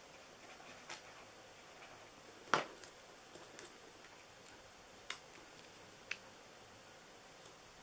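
Faint, scattered small clicks and taps of hands working at a craft mat, setting down a plastic wet-glue bottle and placing small paper leaves; the sharpest tap comes about two and a half seconds in.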